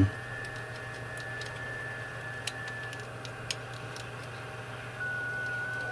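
A few faint plastic clicks and taps as a USB flash drive is pushed against a Type-C OTG adapter that it will not go into, two of them sharper, about halfway through. Under them runs a steady high whine and a low hum, the whine stepping down in pitch near the end.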